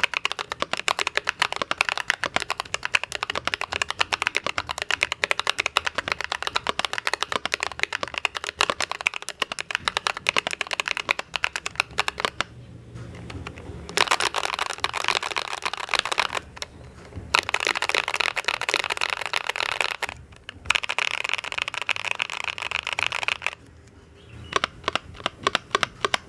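Typing on a mechanical keyboard fitted with stock Akko Pom Pink linear switches (Idobao ID80 v1), with steady key clacks for about twelve seconds. After a short pause come three stretches of very fast, continuous key presses, then a few scattered keystrokes near the end.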